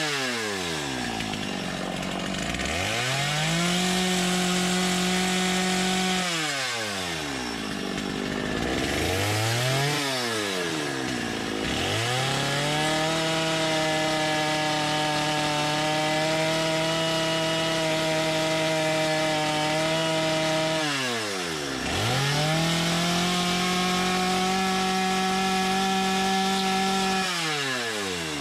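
Chainsaw carving into a block of wood: the engine runs at high speed, and the throttle is let off and opened again about four times, the pitch falling to idle and climbing back each time, with a short blip about ten seconds in.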